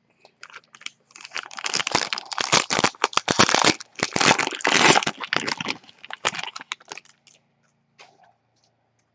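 A trading card pack's foil wrapper being torn open and crumpled by hand: dense crinkling that is loudest in the middle and thins out to a few scattered crinkles near the end.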